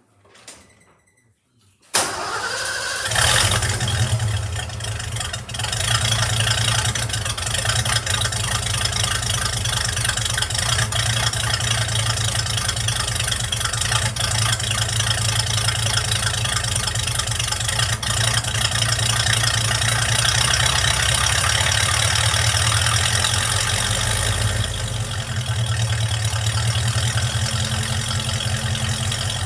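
Project truck's engine warm-started, catching about two seconds in and then running steadily, its intake vacuum leak now fixed. The running level eases down slightly near the end.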